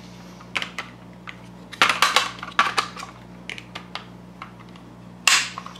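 Hard plastic parts of a Hot Wheels track set's iPad stand clicking and knocking together as they are handled and fitted by hand: a scattering of short clicks, a cluster about two seconds in and the loudest knock near the end.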